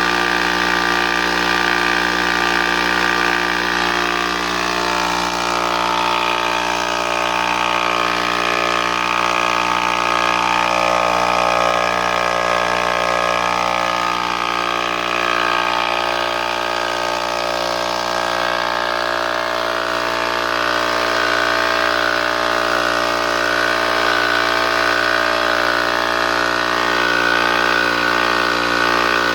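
A Charge Air 5 hp, 20-gallon air compressor running steadily, its motor and pump making a continuous mechanical drone.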